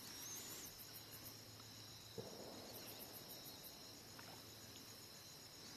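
Faint, steady chorus of insects, with one small click about two seconds in.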